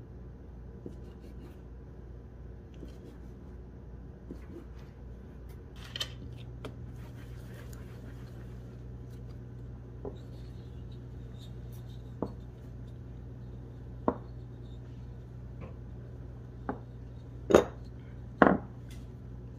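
Scattered sharp taps and knocks of a dough cutter and a wooden rolling pin on a silicone baking mat as bread dough is divided, shaped and rolled out, the two loudest knocks near the end, over a steady low hum.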